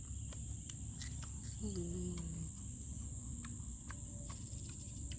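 Steady high-pitched chirring of crickets. Over it come scattered light clicks and crunches of fried grasshoppers being chewed, and a short low hummed voice sound about two seconds in.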